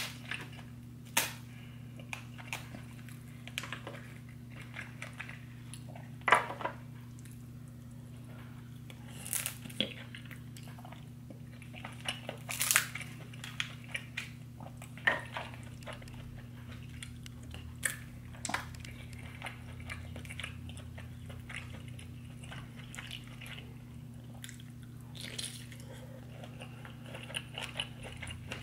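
Close-miked eating sounds: a person chewing and biting into seafood boil, with irregular mouth smacks and sharp clicks, a few louder ones standing out. A steady low hum runs underneath.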